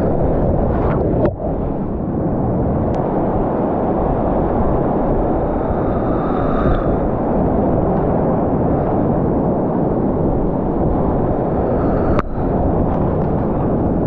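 Loud, steady roar of whitewater rapids, heard up close from a camera riding on a kayak as it drops over a ledge and runs the rapid. A short knock with a brief dip in the roar comes about a second in and again near the end.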